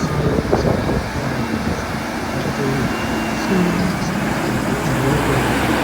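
Diesel engines of large farm machinery running steadily as the machines drive slowly past.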